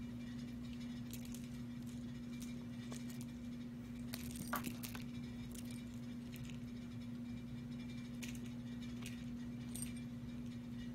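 A cat's collar tags clinking lightly and the fur rustling on carpet as the cat rolls around, a few scattered clicks with a louder cluster about four to five seconds in, over a steady low hum.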